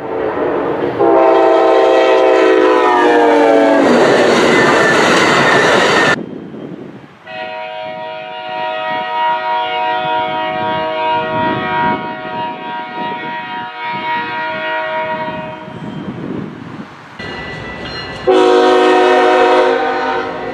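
Locomotive multi-chime air horns sounding in three separate clips. A loud horn chord is held for about five seconds and cut off abruptly. A quieter horn chord then sounds steadily for about ten seconds over rumbling train noise, and a loud horn blast comes near the end.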